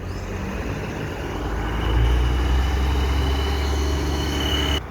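A motor vehicle's engine running: a low rumble that grows louder over the first two seconds, holds steady, then drops away suddenly near the end.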